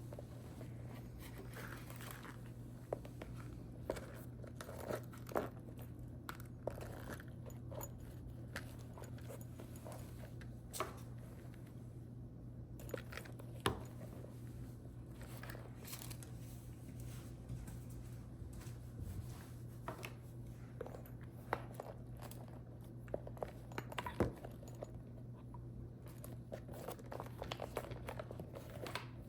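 Close-miked hands handling a new leather shoulder bag and its wrapping: irregular crinkles, taps and small clicks, over a steady low hum.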